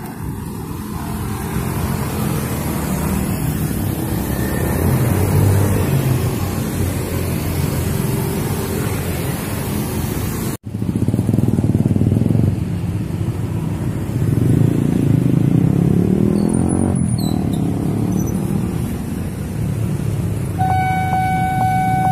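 Heavy motorbike and car traffic crossing a railway level crossing, many small engines running and passing by in swells. The sound cuts out for an instant about halfway through. Near the end a steady electronic warning tone starts up: the crossing alarm sounding for an approaching train.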